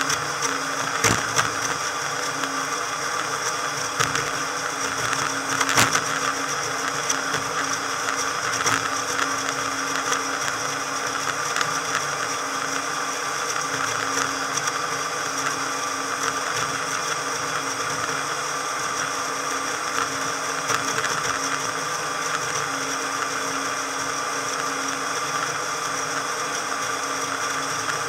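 Motorboat engine and water noise under way, sped up fourfold so that it comes out as a steady, high, blender-like whir, with a few sharp knocks in the first six seconds.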